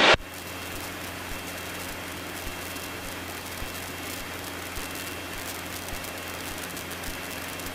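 Steady hiss with a low, even hum from the Cessna 150's Continental O-200 four-cylinder engine running in flight, heard from inside the cockpit.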